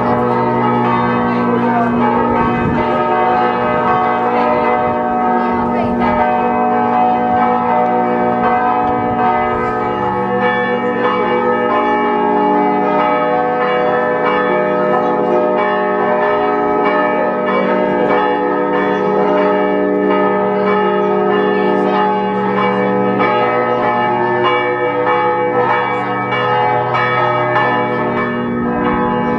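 Church bells ringing continuously, the tones of several bells overlapping.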